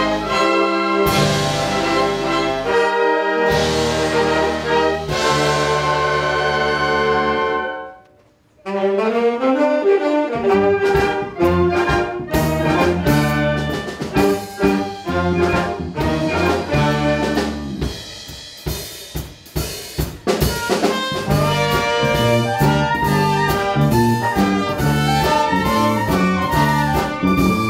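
Wind orchestra (concert band) playing a medley of Korean popular songs: brass, saxophones, flutes and clarinets over drum kit. Loud held chords with drum hits end about eight seconds in. After a brief pause a new, faster section opens with a rising run, softens for a couple of seconds past the middle, then comes back at full strength.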